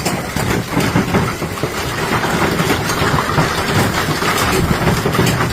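Hailstorm: hail and heavy rain pelting hard surfaces in a dense, steady clatter of many small impacts.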